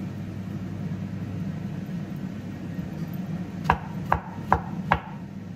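Knife chopping on a cutting board: four sharp strokes about half a second apart in the second half, over a steady low hum.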